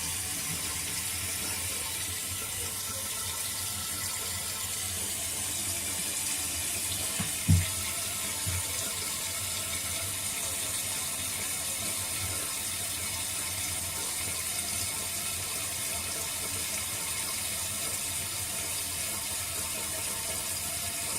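Water hissing steadily as a newly installed Fluidmaster fill valve refills the toilet tank, with a brief low thump about seven seconds in.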